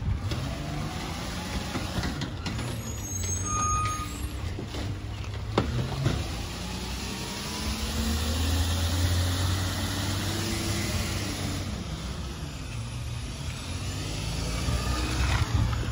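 Rear-loading garbage truck's diesel engine running, its pitch rising and falling several times as the truck creeps along and stops between pickups.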